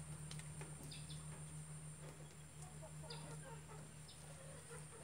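Faint chickens clucking, with short high chirps every couple of seconds over a steady low hum.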